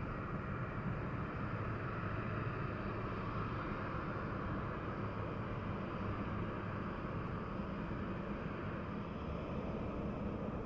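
Steady, distant jet engine noise: a low rumble with a faint, even whine over it.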